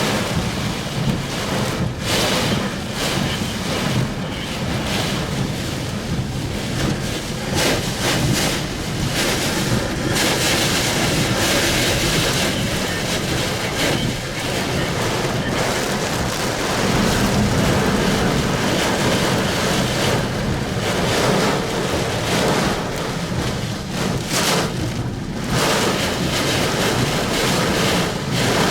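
Strong thunderstorm winds gusting over the microphone with rain, a loud, dense noise that swells and dips with the gusts.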